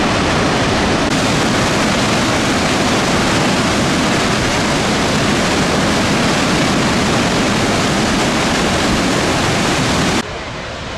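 Large waterfall, Victoria Falls, a loud steady rush of falling water that cuts off suddenly about ten seconds in.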